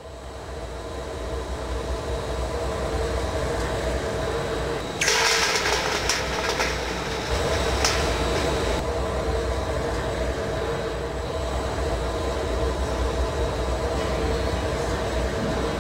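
Steady low roar with a constant hum, typical of a glassblowing hot shop's furnaces and fans. About five seconds in, a sudden burst of crackling hiss starts and dies away over the next couple of seconds, with one more sharp crackle a little later.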